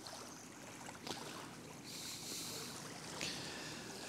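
Faint, steady outdoor background noise, with a brief high hiss about two seconds in and a couple of faint clicks.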